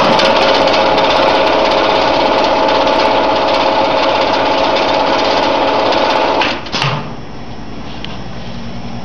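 Liquid filling machine running as it fills a plastic jug: a loud, fast mechanical rattle that starts at once and cuts off about six and a half seconds in, leaving a quieter steady hum.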